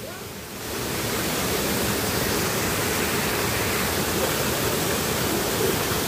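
Large waterfall: water falling in a steady rushing noise. It grows louder about a second in, then holds even.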